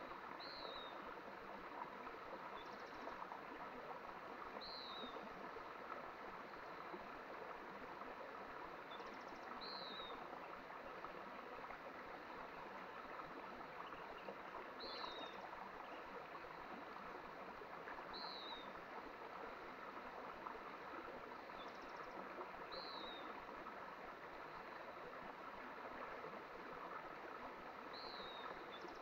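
Mountain stream running steadily. A bird repeats a short, high, falling chirp every few seconds over the water.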